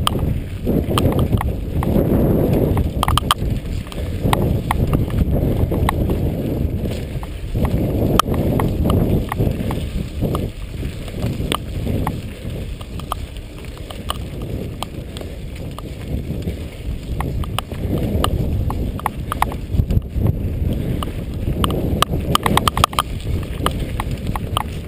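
Mountain bike riding over a dirt singletrack: a rumble of wind on the microphone and tyres on dirt that swells and fades, with frequent sharp clicks and rattles from the bike as it bounces over the bumps.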